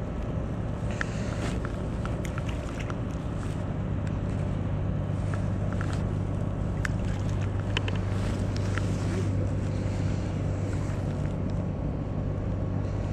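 A steady low motor drone, like an idling engine, under scattered light clicks and ticks of fishing tackle as a spinning reel is wound in.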